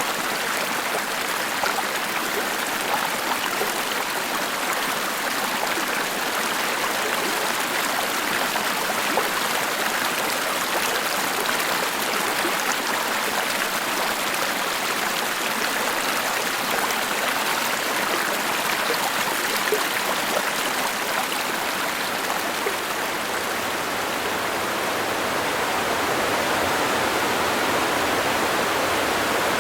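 Rainforest creek water tumbling over rocks and small falls, a steady rushing splash, a little louder near the end.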